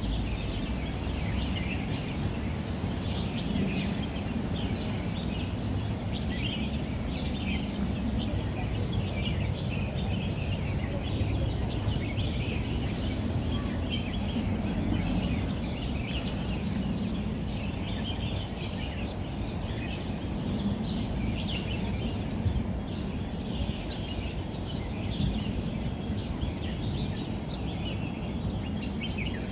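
Many small birds chirping and calling over and over, above a steady low background rumble.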